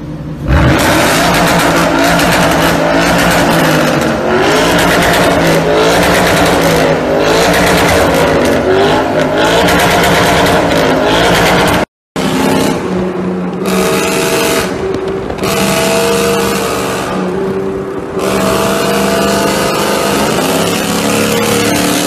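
A Ford Mustang's exhaust bursting into loud, hard revving about half a second in, its pitch rising and falling. After a cut, a lowered sedan's engine pulls hard through the gears at speed, its note dropping off briefly between shifts.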